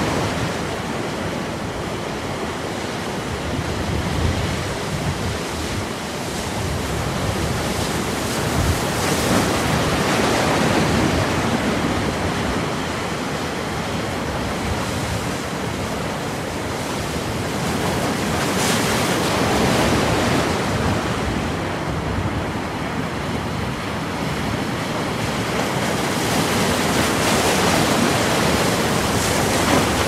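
Sea surf breaking and washing up a pebble beach, a continuous rush of water that swells and eases every several seconds.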